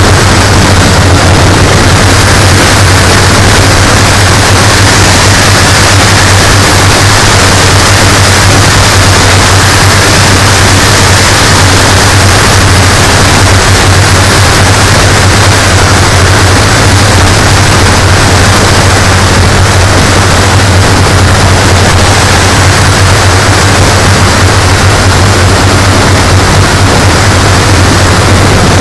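Engines of a radio-controlled B-17G scale model running at a steady low drone under a heavy rushing noise, loud and unchanging throughout.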